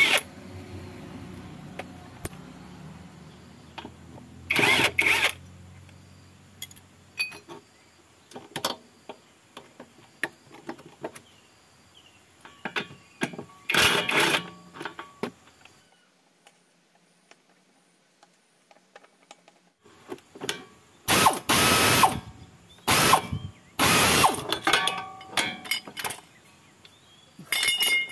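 Ratchet wrench clicking in short runs as the bolts holding the front shock absorber are worked loose, with small metallic clinks of tools between. The runs come a few times, most of them near the end.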